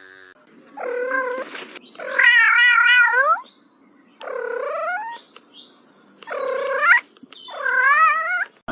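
A cat meowing five times in drawn-out, wavering calls. The second call is the longest and loudest, and the later ones are shorter.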